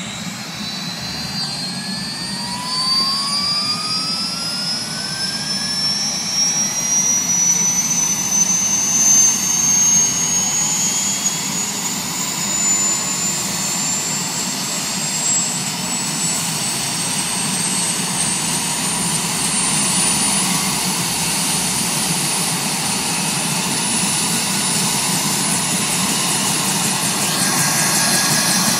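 Bell Huey-type helicopter's turbine engine spooling up during startup: a whine that climbs steadily in pitch for about twenty seconds and then holds steady, over the noise of the engine and the slowly turning two-blade rotor, growing gradually louder.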